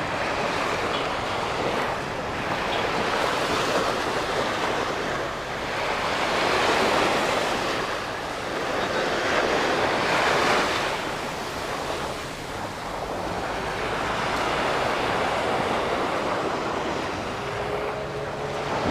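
Small waves breaking and washing up a sandy beach, swelling and easing every few seconds, with wind buffeting the microphone.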